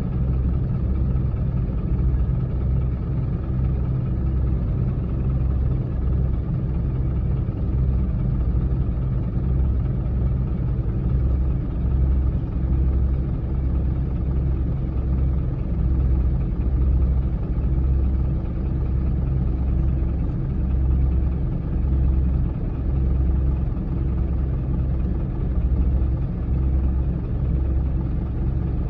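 Bulldozer's diesel engine running steadily with a deep rumble that pulses unevenly.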